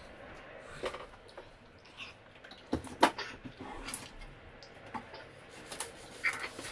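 Scattered knocks and clicks from someone working inside a cabinet under a kitchen sink, as tools and body bump against the pipes and cabinet. The sharpest knock comes about three seconds in.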